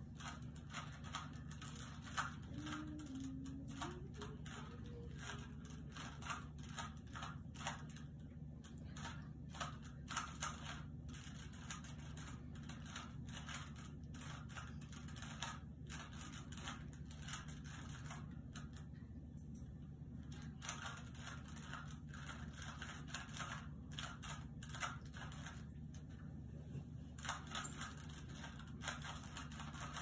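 Plastic Rubik's cube being turned rapidly by hand, an irregular stream of clicks and clacks as its layers snap round, over a steady low hum.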